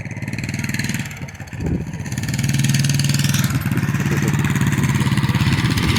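Vehicle engine running close by with a rapid, even pulse, dipping briefly after about a second and then louder from about two seconds in.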